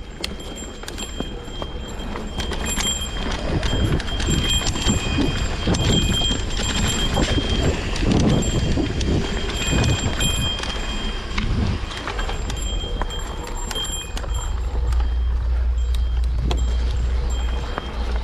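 Mountain bike rattling and clattering over rough single track, with many sharp knocks, and wind buffeting the microphone as a low rumble that gets heavier near the end.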